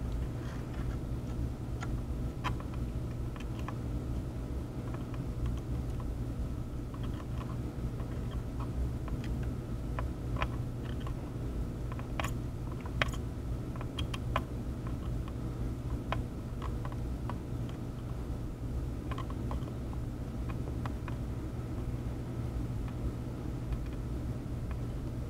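Steady low hum from workbench equipment, with a few faint, scattered clicks and taps from the soldering tools touching the circuit board.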